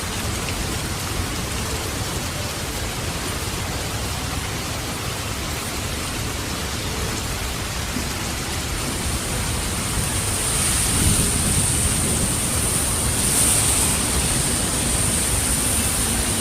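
Heavy rain falling steadily, swelling a little louder about two-thirds of the way through.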